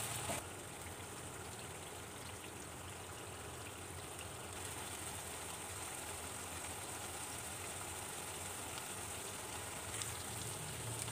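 Beef liver frying down in ghee in a pan, a steady faint sizzle and bubble with no stirring, at the last bhuna stage as the liquid cooks off.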